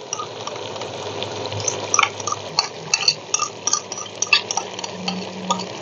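Metal spoon scraping cream out of a plastic tub into a clay cooking pot, with many short irregular clicks and scrapes from about two seconds in. Under them the pot sizzles steadily as the cream drops into the hot karahi.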